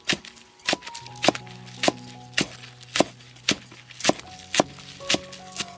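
Kitchen knife chopping spring onions on a wooden chopping block: sharp, even knocks about twice a second, over soft background music.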